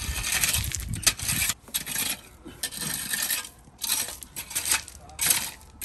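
Metal landscape rake dragged through loose crushed-stone MOT Type 1 sub-base, a gritty scrape of stones in repeated strokes about once a second.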